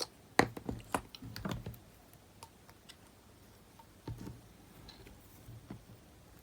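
Scattered small clicks and taps of hands handling small parts and a tool: several in the first two seconds, another cluster about four seconds in.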